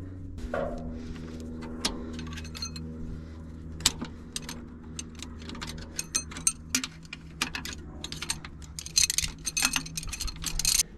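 Loose steel push rods clinking and rattling against each other as they are handled, with the sharp clicks coming thickest near the end. A steady low hum runs underneath.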